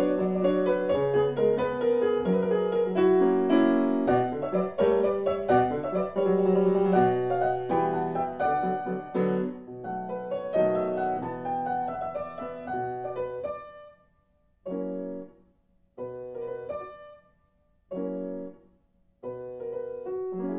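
Piano music accompanying a silent film, playing a busy flowing passage; near the end it breaks into three short chords with pauses between, then carries on.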